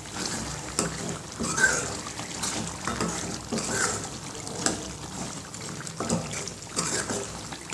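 Steel ladle stirring thick cooked chicken gravy in a metal pot: wet sloshing and squelching, with scattered light knocks and scrapes of the ladle against the pot.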